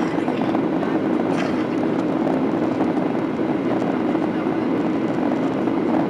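Boeing 737-800 with CFM56-7B jet engines running, a steady, unchanging noise of engines and rushing air.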